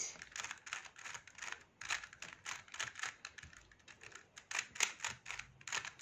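Stickerless 3x3 plastic Rubik's-type cube being turned by hand: quick, irregular clicks and clacks of its layers turning, several a second in short runs.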